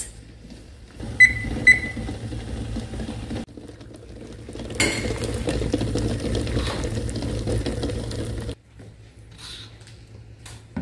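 Two short electronic beeps about half a second apart, then water at a rolling boil around eggs in a stainless steel saucepan, a steady bubbling that cuts off suddenly near the end.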